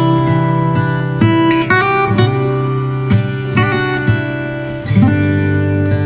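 Relaxing background music played on plucked acoustic guitar, with chords changing every second or so.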